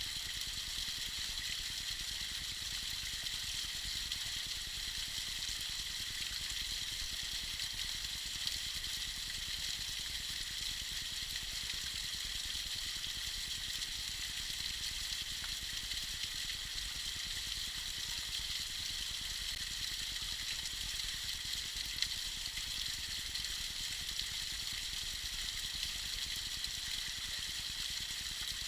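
Tiny waterfall splashing steadily: a continuous high hiss of falling water with no pauses.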